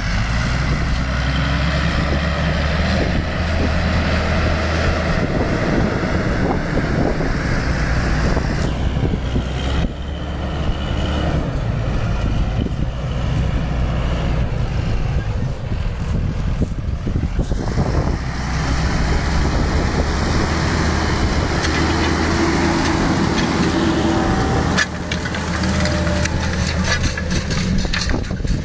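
Fendt 926 Vario tractor's diesel engine running steadily under load while pulling a Väderstad Carrier disc harrow through the soil. Sharp knocks and rattles come in near the end as the tractor and harrow pass close.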